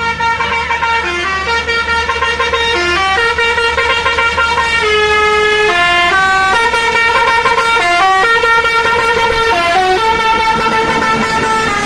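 A tour bus's multi-tone telolet horn playing a melody, loud, stepping quickly from note to note without a break.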